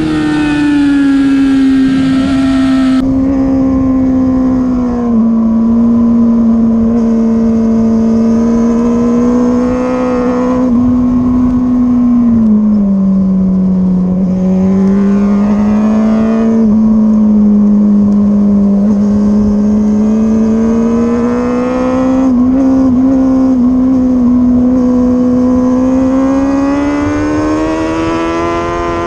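Sportbike's inline-four engine running hard on a race track. Its note sinks slowly to a low point about halfway through, then climbs again toward the end, with no sharp gear-change breaks.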